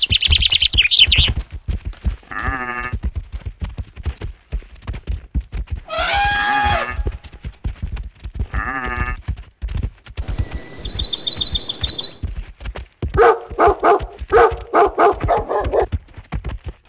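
Stampede sound effects: a steady run of thudding footfalls under a string of animal calls. Several goat bleats come through, with a high bird trill at the start and again midway, and a rapid series of calls near the end.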